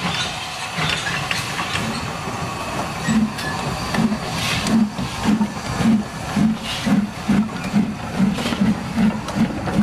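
Steam train running, with a steady hiss and a low, regular beat that starts about three seconds in and quickens to roughly two to three beats a second.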